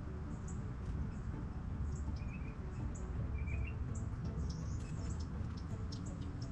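Outdoor ambience: a steady low rumble of wind on the microphone, with a bird chirping briefly twice near the middle and faint scattered high ticks.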